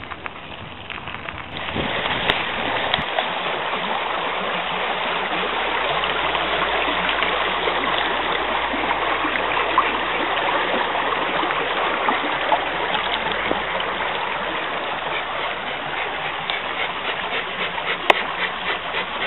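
Creek water running steadily, coming in about two seconds in.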